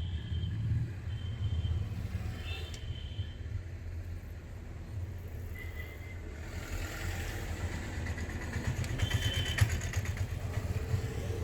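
Road traffic: a steady low engine rumble from passing motor vehicles, which thickens from about seven seconds in as a vehicle goes by close, with a few brief high-pitched tones.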